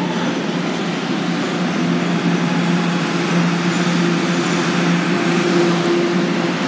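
Subway station noise: a steady rumble from trains, with a low, even electrical hum running under it.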